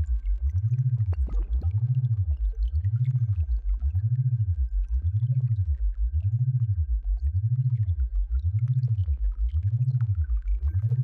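Synthesized sound-therapy drone: a low, pulsing tone that slides up and down in pitch about once a second, over a faint steady high tone.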